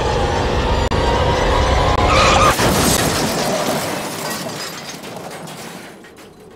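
Staged car crash: a low rumble, a brief tyre squeal, then a loud impact with shattering glass about two and a half seconds in, the noise dying away over the next few seconds.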